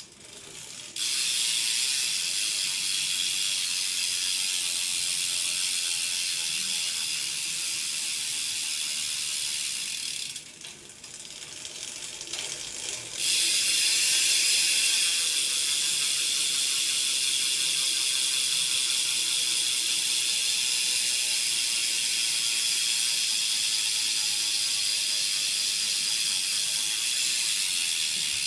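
BMX rear hub ratcheting as the wheel spins freely: a rapid, dense clicking buzz from the hub's pawls. It starts about a second in, drops away for a couple of seconds near the middle, then picks up again and runs steadily.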